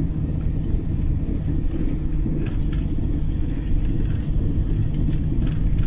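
Steady low rumble of a vehicle's engine and tyres heard from inside the cab while driving along a road, with a few faint ticks.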